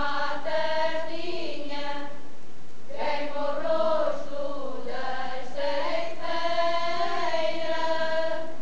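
A women's and girls' Alentejo folk choir singing a slow traditional song in long held notes. The phrase breaks off briefly about two and a half seconds in, then the voices come back in together.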